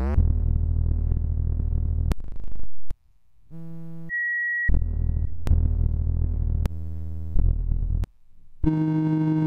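Evolved software-synthesizer patches auditioned one after another: a string of different electronic drones and tones, each cut off abruptly with a click as the next begins. A brief steady high beep sounds about four seconds in.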